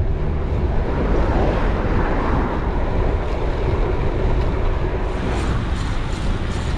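Steady wind rush buffeting an action camera's microphone as a gravel bike speeds downhill.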